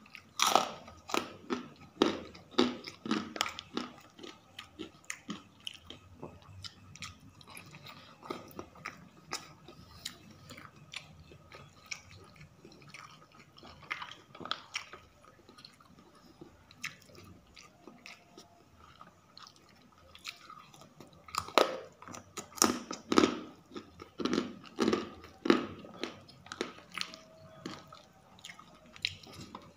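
Close-miked chewing and crunching of a rice meal with kerupuk crackers, in two bouts of rapid crackly bites: one in the first few seconds and a louder one about three-quarters of the way through.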